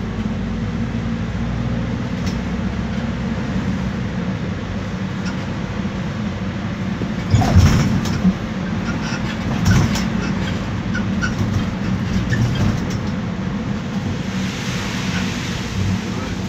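Iveco Daily diesel minibus running, heard from inside the cabin: steady engine and road noise with squeaks from the suspension and running gear. A loud clattering knock comes about halfway through, and another a couple of seconds later.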